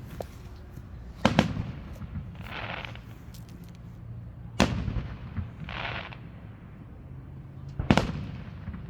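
Aerial fireworks going off: three loud bangs about three seconds apart, each followed a second or so later by a short hissing burst.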